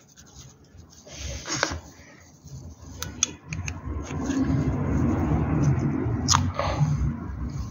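Hands handling a greased clutch slave cylinder and its rubber dust boot: a few small clicks, then a rough rubbing and handling noise for the last few seconds as the boot is worked onto the cylinder.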